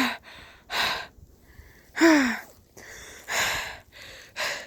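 A person breathing hard: about five loud breaths roughly a second apart, one of them a voiced sigh that falls in pitch about two seconds in.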